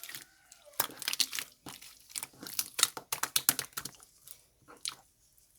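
Slime being squished and kneaded by hand, giving a quick irregular run of sharp clicks and crackles that thins to a few scattered pops after about four seconds.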